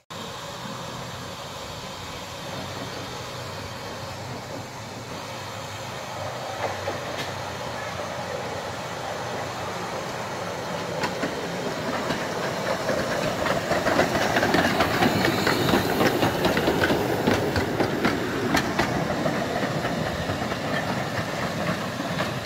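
15-inch gauge miniature steam locomotive running along the track, its wheels clicking over rail joints and pointwork. It grows louder about halfway through and eases off a little near the end.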